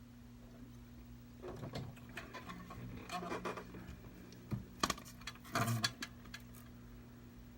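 Small hand tools and parts clicking, tapping and scraping during a tablet screen repair: a run of light irregular clicks from about a second and a half in, with the loudest few sharp taps around five seconds, over a steady low hum.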